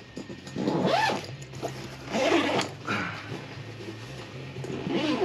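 Packaging being opened by hand: three short rasping strokes, over a steady low hum.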